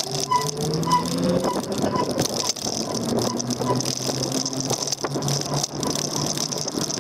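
Daymak Max e-bike riding along a street, its electric motor running with a pitch that rises gently in the first second or two, over steady rolling and rattling noise.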